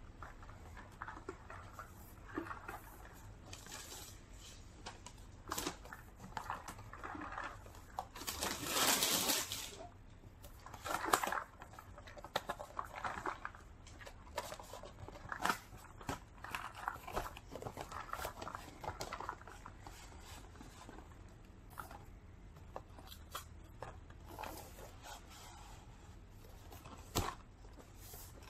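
Packaging being handled: a clear plastic bag crinkling and a cardboard gift-box sleeve sliding and scraping, with light taps and knocks. The loudest rustle comes about eight to ten seconds in, with a shorter one just after.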